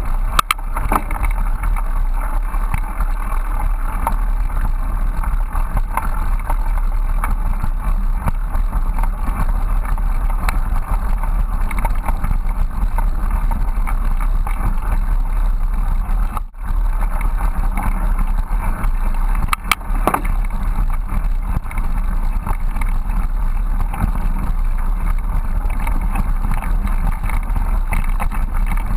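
Bicycle rolling along a leaf-covered dirt trail, heard through a handlebar-mounted camera: a steady rumble from the tyres and frame vibration, with scattered small knocks and rattles. The noise dips out briefly about halfway through.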